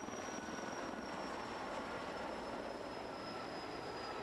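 An Erickson S-64 Air-Crane firefighting helicopter is flying overhead with a steady rotor and turbine noise. A thin high whine drops slowly in pitch as it goes.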